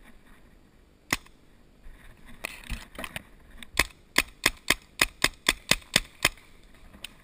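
Paintball marker firing: a single shot about a second in, a few scattered shots, then a quick string of about ten shots at roughly four a second.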